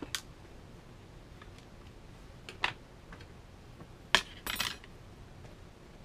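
Light metallic clicks and taps from a small screwdriver and tools working inside an opened MacBook Pro: a click at the start, another about two and a half seconds in, then a sharper click followed by a brief rattle a little after four seconds.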